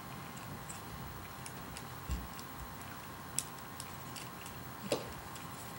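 A few faint, sparse clicks and a light knock of small plastic parts being handled on an S.H.Figuarts Machine Tornador toy motorcycle figure.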